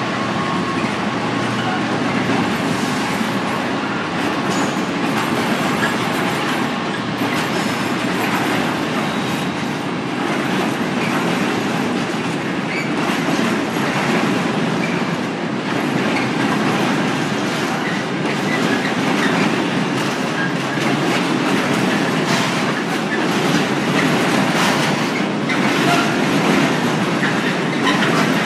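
Loaded container wagons of a long intermodal freight train rolling steadily past. The sound is a continuous rumble with the repeated clatter of wheels over rail joints.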